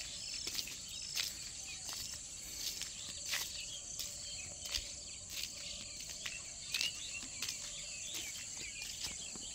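Steady high-pitched insect chirring in the open countryside, with scattered short chirps and irregular sharp clicks over it.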